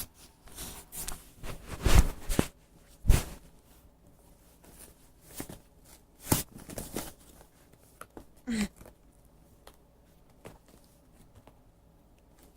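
An Amazon shipping package being pulled open by hand, without scissors: the packaging crackles and tears in a few sharp rips, with quieter rustling between.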